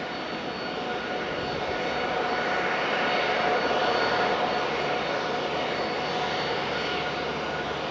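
Jet engines of a Ryanair Boeing 737 at low taxi power as it rolls past. The sound is a steady rush with a thin whine, growing a little louder about halfway through.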